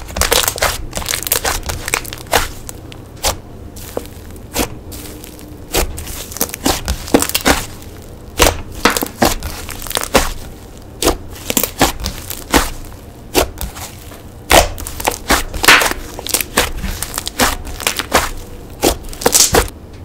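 Slime being squeezed and pressed by hand, giving an irregular run of sharp crackles and pops, a few a second, with a brief lull partway through.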